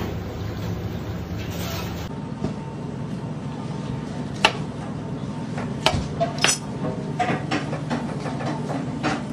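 A kitchen knife knocking and clicking against a plastic cutting board as a lemon is sliced and hollowed out, with a few sharp knocks around the middle. A steady low hum runs underneath.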